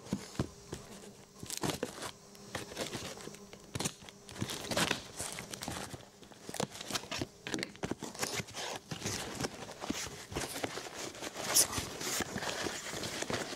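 A knife slitting the packing tape on a cardboard box and the box being torn open: short scratches, clicks and tearing. Packing paper crinkles as it is pulled out near the end.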